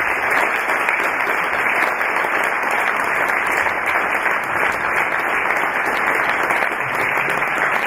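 Audience applauding: a steady, sustained round of clapping from a full hall.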